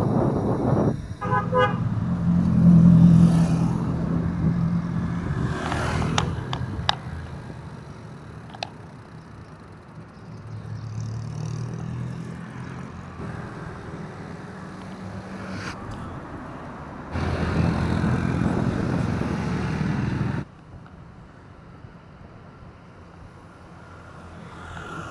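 Road traffic on a city street, with cars passing and wind rumbling on the microphone of a moving bicycle. A brief horn toot sounds about a second in.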